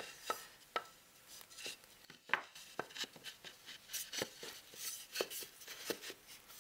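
Light, irregular knocks and clicks of MDF speaker-cabinet panels being handled and shifted against each other on a wooden table, about a dozen taps in all.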